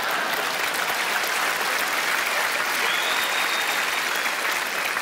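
A large audience laughing and applauding, a steady wash of clapping and laughter, with a faint high steady tone partway through.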